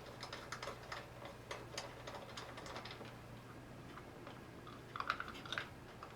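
Light, irregular clicks and taps of small parts and tools being handled while the fuel is drained from a snowblower carburetor, with a brief flurry of clicks about five seconds in, over a faint steady low hum.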